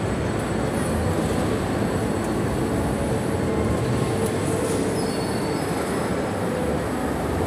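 Steady mechanical rumble of amusement rides running, with a brief faint high squeal about five seconds in.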